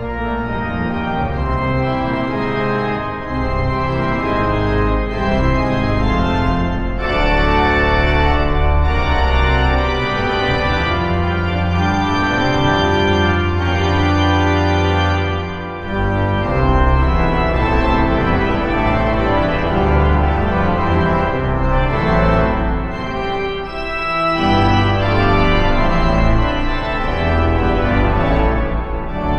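Pipe organ playing full, sustained chords on the manuals over deep pedal bass notes, the texture thinning briefly twice before filling out again.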